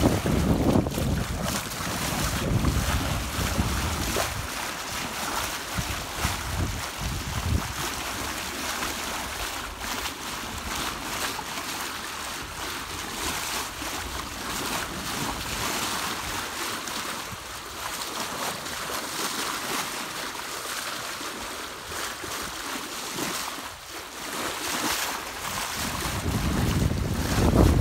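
Bow wave of a Catalina 30 sailboat rushing and splashing along the hull as the boat sails, with wind buffeting the microphone, heaviest in the first few seconds and again at the very end.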